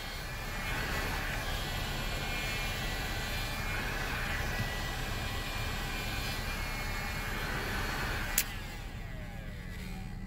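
Heat gun blowing hot air steadily while softening hard plastic trim. About eight seconds in it is switched off with a click, and the fan winds down.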